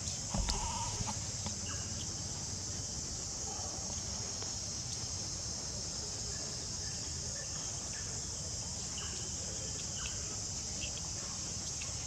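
Steady, high-pitched insect chorus, with a few short chirps scattered through it and a thump about half a second in.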